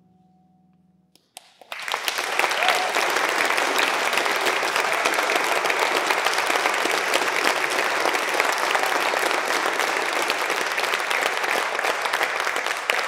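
A last held musical chord fades out, then an audience starts applauding about a second and a half in and keeps clapping steadily.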